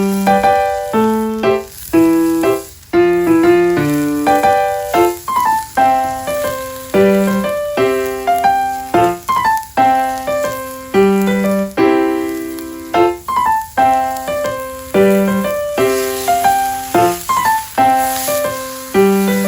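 Background music: a piano-like keyboard tune, notes struck in a steady rhythm and left to ring.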